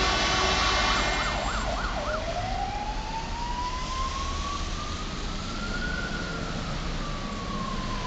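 Fire engine's siren in a fast yelp, with a steady horn blast sounding over it until about a second in. About two seconds in the siren changes to a slow wail that rises for about four seconds and then falls, as the truck moves away.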